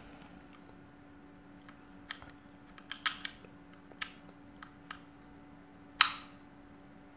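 Small plastic clicks and taps as a coin-cell battery and its round cover are fitted into a digital luggage scale's battery compartment, with one much louder sharp click about six seconds in.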